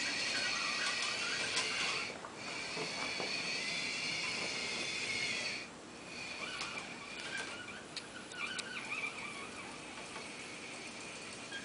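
Electric drive motors of a small tracked robot whining as it drives, a steady high whine that dips briefly about two seconds in and cuts off just under six seconds in. After that, fainter whines come and go, wavering in pitch.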